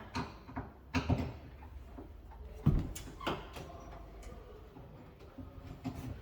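Front-door knob lock being unscrewed and taken apart: a series of sharp clicks and knocks of metal lock parts, the loudest near the middle.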